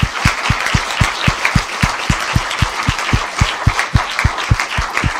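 Audience applauding at the end of a talk: dense clapping from many hands, with one set of claps standing out in an even beat of about four a second.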